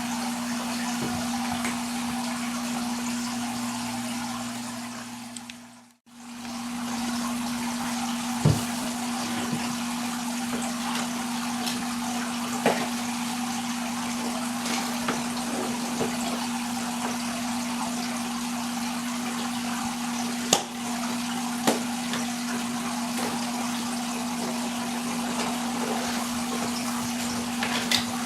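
Saltwater aquarium running: a steady rush of circulating water with a constant pump hum. A few sharp clicks and taps come through it. The sound fades out briefly about six seconds in and comes back.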